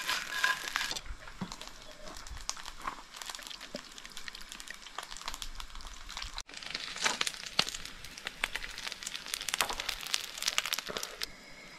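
Coral trout pieces frying in hot oil in a pan: a steady crackle of spitting oil made of many small pops, denser and louder in the second half.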